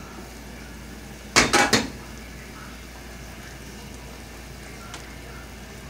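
Glass lid clattering against the rim of an aluminium pot: a quick run of a few sharp clinks about a second and a half in.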